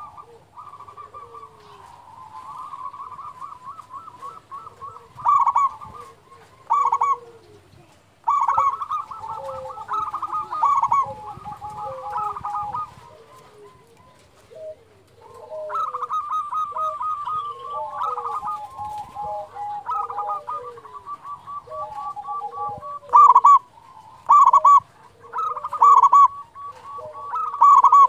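Zebra dove (perkutut) cooing: phrases of rapid, trilling short notes repeated again and again, with several much louder bursts, most of them in the last third.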